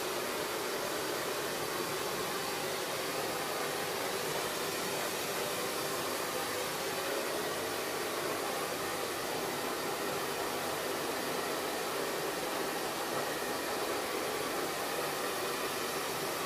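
A steady, even rushing hiss with no breaks or changes in level.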